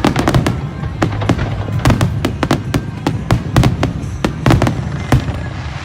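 Fireworks going off in a rapid barrage: loud bangs and cracks, several a second, over a continuous low rumble. They thin out near the end.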